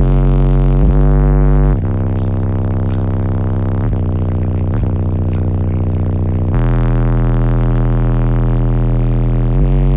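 Four DS18 EXL 15-inch subwoofers in a car audio wall playing a loud bass track, heard from inside the cab: long, deep held notes that step to a new pitch every second or few.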